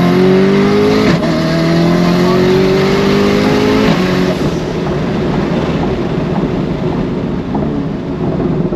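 Twin-turbo LT2 6.2-litre V8 of a C8 Corvette heard from inside the cabin at full throttle. The engine note climbs steadily in pitch with a quick upshift about a second in, then climbs again until the driver lifts off about four seconds in. After that, road and wind rush take over.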